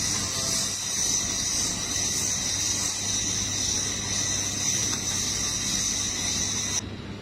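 Steady hiss of air escaping from an electric unicycle's air shock valve, over a low hum, cutting off abruptly near the end.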